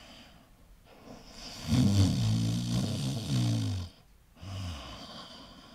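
A person snoring: one long, loud, low snore beginning about two seconds in, followed by a short faint one.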